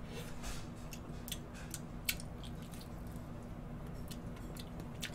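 Faint mouth sounds and scattered small clicks of someone eating soft ice cream with a spoon from a cup.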